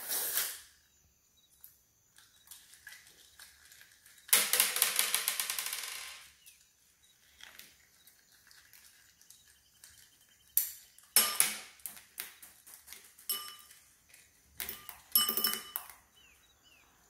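A slime-filled balloon being cut open with scissors and peeled apart over a ceramic bowl. There is a burst of rapid crackling about four seconds in, then a series of short ringing clinks as small beads and pieces land in the bowl.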